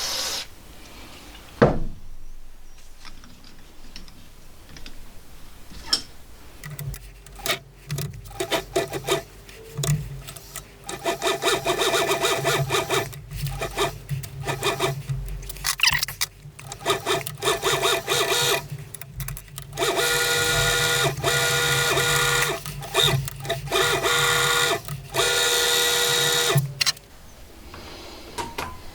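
Emco V10-P lathe running while a tailstock die-holder cuts an 8 mm thread: a steady motor hum under repeated bursts of metal cutting noise, which come in short stop-start stretches near the end and stop a couple of seconds before the end. A single knock sounds about a second and a half in.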